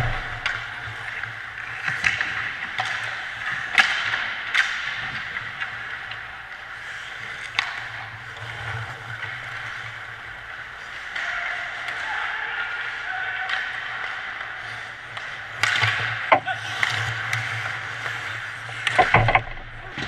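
Ice hockey play: skate blades scraping the ice, with sharp clacks of sticks and puck every few seconds, loudest about four seconds in and in a cluster near the end, over a steady low hum.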